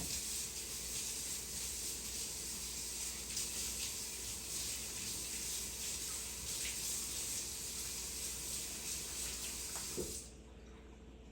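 Kitchen sink faucet running as celery stalks are rinsed under the stream, a steady splashing rush of water that stops about ten seconds in.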